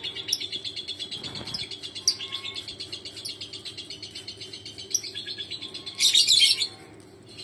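Lovebird chattering: a fast, steady stream of high chirps, with a louder, harsher burst about six seconds in before it stops.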